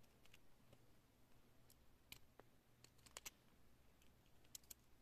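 A few faint, irregular small clicks of a metal ring and needle-nose pliers against a fused Hama bead piece as the ring is worked through one of its holes.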